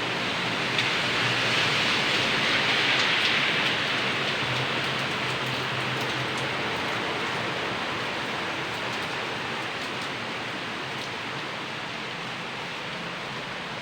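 Heavy rain falling steadily, a dense even hiss that swells a little a few seconds in and then eases slightly.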